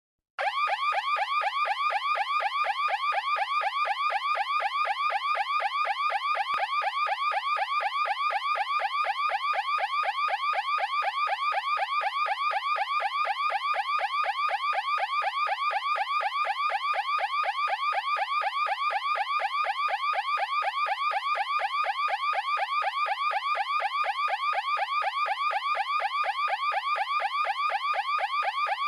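Electronic anti-theft alarm siren sounding loudly and without pause, a fast warble of quick rising sweeps repeated at an even rate. It starts about half a second in.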